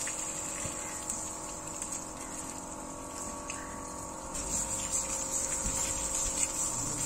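Water from a hose spraying and splashing onto an elephant's hide as it is bathed, a steady hiss with a steady hum underneath.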